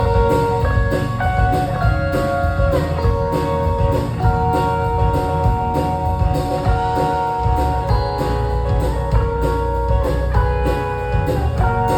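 Instrumental band music with no singing: held guitar chords over a steady drum beat and bass.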